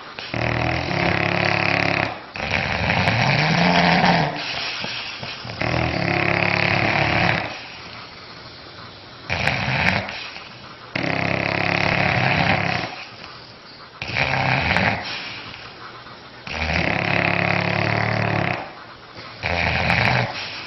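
An animal snoring in a steady rhythm: about eight rasping snores, each a second or two long, with short quieter gaps between them.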